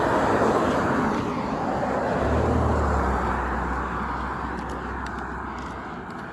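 A road vehicle passing close by, its tyre and engine noise loudest at the start and slowly fading, with a low engine rumble coming in about two seconds in and dying away. No horn sounds.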